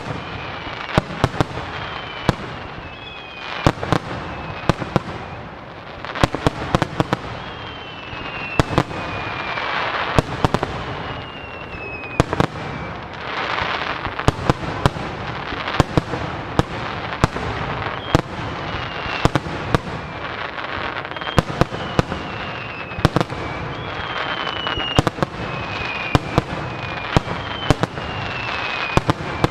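Starmine fireworks barrage of large shells: sharp bangs in quick succession over a dense crackle, with thin whistles that fall in pitch again and again.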